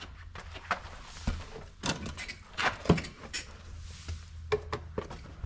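Footsteps and irregular knocks, clicks and scrapes as people step over and bump against clutter on a cramped walking path, the loudest knocks about a second in and about three seconds in, over a low steady hum.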